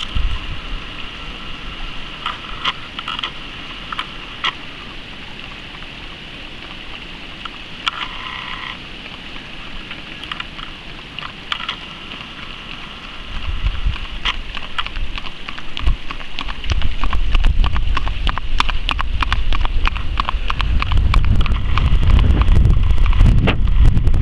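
Wind buffeting the microphone, a low rumble that starts about halfway and grows louder, over a steady high hum and scattered irregular clicks.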